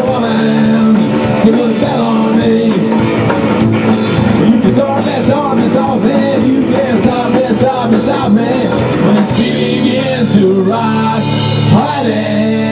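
Rock band playing live: drum kit and electric guitars in an instrumental passage over steady held notes, with a melodic line that bends up and down in pitch.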